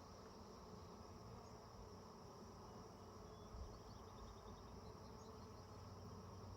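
Faint, steady buzzing of a honeybee colony around an opened hive.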